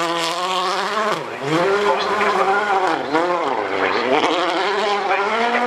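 Rally car engine running hard, its pitch repeatedly climbing and dropping sharply several times as the driver revs, lifts and shifts.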